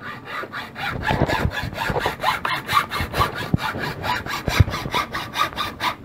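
Bow saw cutting through a wooden board by hand in rapid, even strokes, about five a second.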